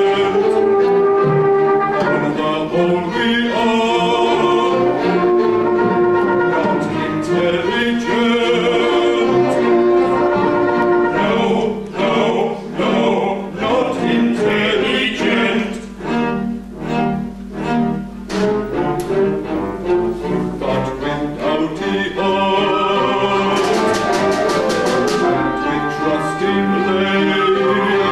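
Operetta music played live by a small orchestra with strings, with men's voices singing. Through the middle the accompaniment breaks into short, detached chords, and a fast, high rattle comes in near the end.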